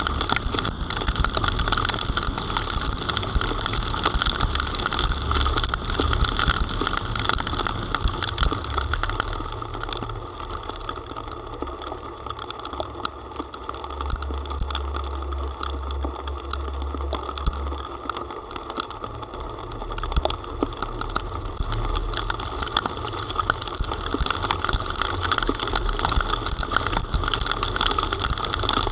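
Heavy rain, with drops striking close to the microphone in many sharp ticks over a steady hiss and a low rumble; a little quieter for several seconds mid-way.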